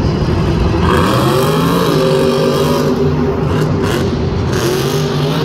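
El Toro Loco monster truck's supercharged V8 engine revving as the truck accelerates across the dirt, its pitch climbing about a second in, holding, then climbing again near the end.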